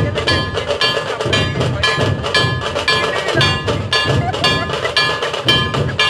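Live percussion playing a steady beat: a struck metal instrument rings out a little over twice a second with bright, bell-like overtones, over a deeper drum pulse.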